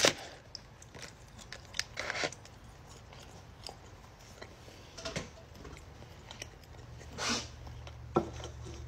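A person chewing beef jerky: faint, scattered clicks and smacks of chewing, with a couple of short breathy sounds.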